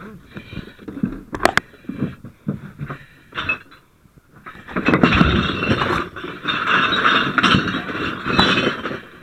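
Rubbish and debris being shoved aside: scattered knocks and clinks, then about four seconds of loud, dense rustling and crunching of piled plastic bags and junk.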